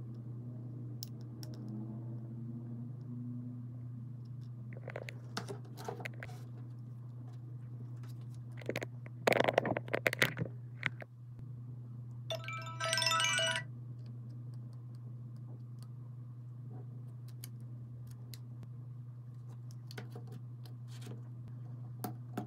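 Sharp clicks and crinkling from handling small parts, loudest between about 5 and 11 seconds in, then a short bright electronic chime lasting about a second, all over a steady low hum.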